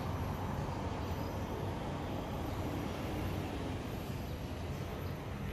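Steady rumble of distant road traffic, an even hum with no single vehicle standing out.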